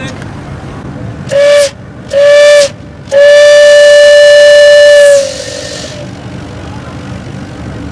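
Paddlewheeler's steam whistle blown three times on one steady note: two short blasts, then a long one of about two seconds that tails off into a hiss of steam.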